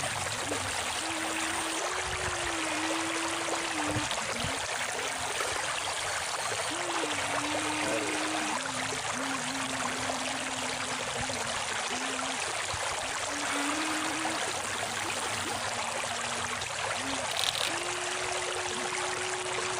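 Shallow river water running steadily. Under it a thin electric whine, most likely the RC excavator's motor, shifts and steps in pitch as it works.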